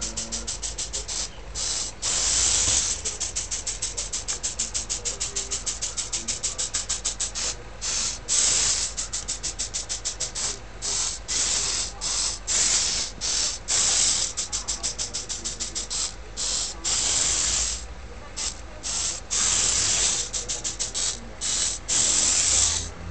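Small tracked robot's gear motors running in rapid short pulses, a dense stutter broken by longer continuous runs of about a second.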